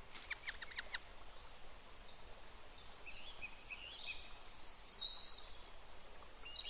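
Birds chirping and singing over a steady outdoor hiss, the calls thickening from about halfway through. The first second holds a fast run of short sharp ticks.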